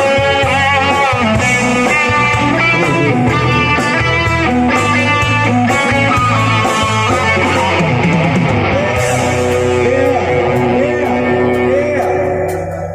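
Guitar-led music with a steady bass underneath, playing at full level and dropping away about a second before the end.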